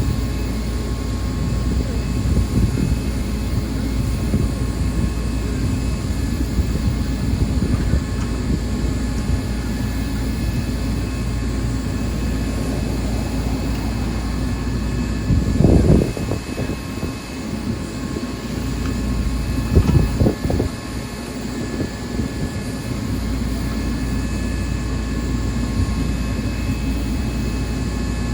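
A heavy vehicle's engine runs steadily with a low rumble. There are two louder surges a little past halfway, and the rumble dips between them.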